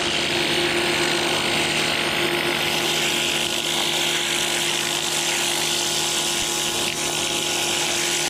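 Bosch Aquatak 125 electric pressure washer running steadily: a motor hum under the hiss of its high-pressure water jet spraying onto sandals and grass.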